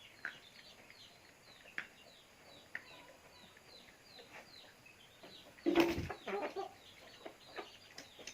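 Birds chirping in a rapid run of short, high, falling chirps, with a few light clicks and one loud rustle about six seconds in.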